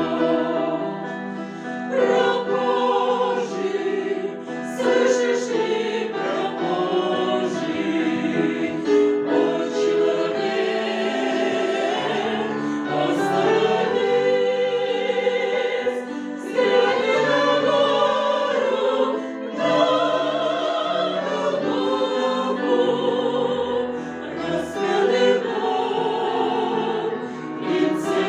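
Choir singing a Russian song in several voice parts at once, in long sustained phrases with vibrato and short breaks between them.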